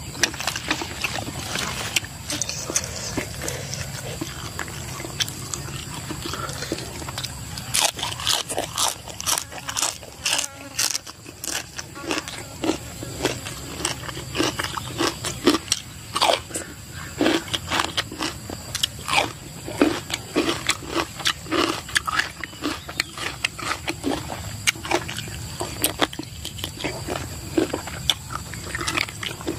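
A person chewing and biting cold spicy chicken feet with the mouth close to the microphone: irregular crunches and wet mouth smacks, coming thicker from about eight seconds in.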